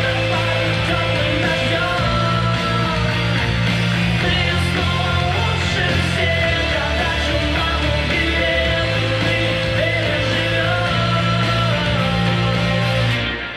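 Dance performance music: a loud song with singing over a heavy, steady bass line, cutting off suddenly near the end.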